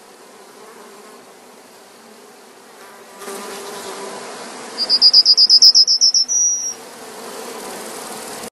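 An insect's high, rapid pulsed trill, about seven pulses a second, lasting about a second and a half near the middle and ending on a brief steadier note. Under it runs a steady low hum and hiss that gets louder about three seconds in.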